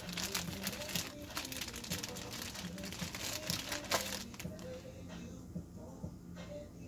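Crinkling and rustling as something is handled, many small crackles over the first four seconds or so, then quieter near the end.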